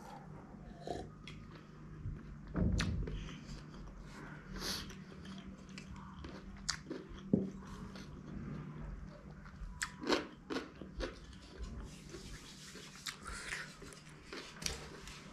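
Close-up chewing, biting and wet mouth sounds of someone eating spicy noodles by hand, with scattered small clicks and a louder thump about two and a half seconds in.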